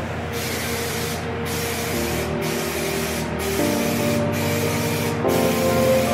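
Aerosol spray can of white base-coat paint hissing in about six back-to-back passes of roughly a second each, laying a coat onto a plastic bumper. Background music fades in under the hiss from about two seconds in.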